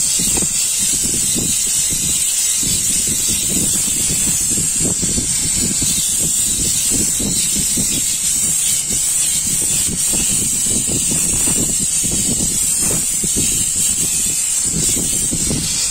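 Steam cleaner wand hissing steadily as it jets steam onto a fabric car seat cover to flatten its wrinkles, with an uneven low rumble underneath.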